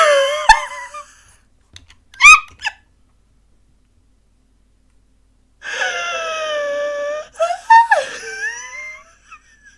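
A person's high-pitched wordless vocal reactions: a sharp squeal at the start and a short one about two seconds in. After a few seconds of silence comes a long drawn-out wail about halfway through, then a few shorter yelps.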